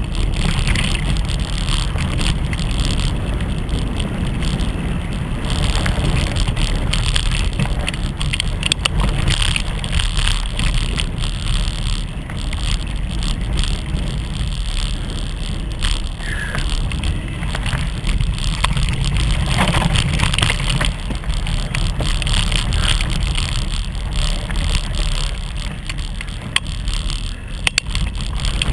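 Mountain bike riding along a dirt trail. A steady low rumble of wind and vibration on the action camera's microphone runs throughout, with frequent rattles and clicks from the bike over bumps.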